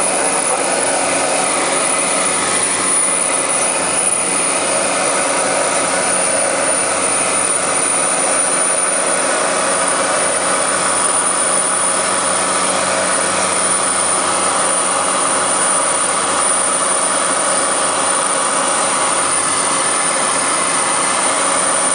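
Steady cabin noise of a Cessna 208B Grand Caravan in cruise: its single Pratt & Whitney PT6A turboprop engine and propeller running at an even, loud drone with faint steady tones, unchanging throughout.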